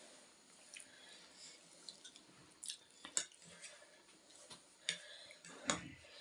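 Close-up eating sounds of ramen noodles: wet chewing and slurping, with a few short sharp clicks scattered through.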